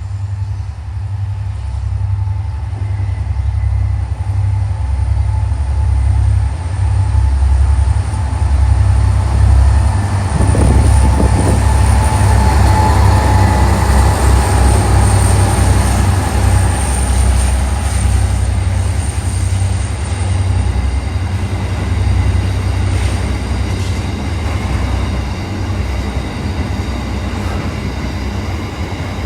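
A train passing on rails: a heavy low rumble that builds, is loudest midway, then slowly eases off.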